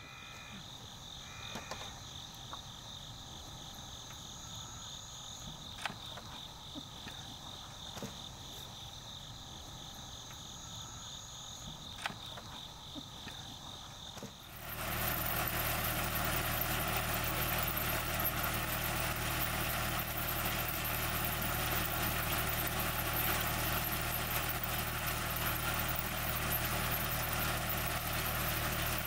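Insects trilling steadily at two high pitches; about halfway through, this cuts to a farm tractor's engine running steadily.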